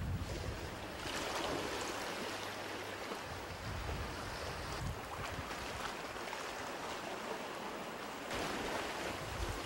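Sea waves washing against a rocky shore with wind on the microphone: a steady rushing hiss that swells about a second in and again near the end.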